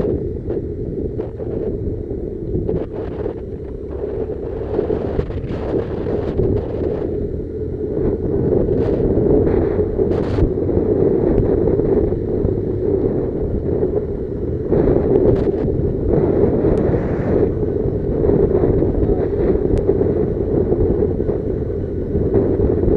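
Motorcycle ride heard with heavy wind buffeting the microphone over the engine's running, with short knocks now and then.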